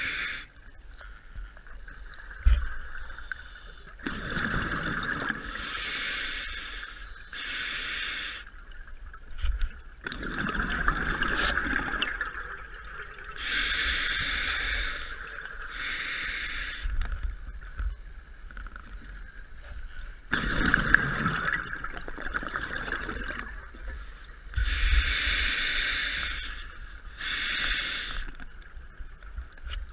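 Scuba diver breathing through a regulator underwater. Each breath is a hissing inhale followed by two gurgling bursts of exhaled bubbles, repeating about every ten seconds, three times.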